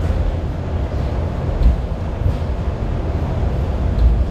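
Kawasaki-built Hong Kong Light Rail car running along the track, heard from inside the trailer car: a steady low rumble of wheels and running gear.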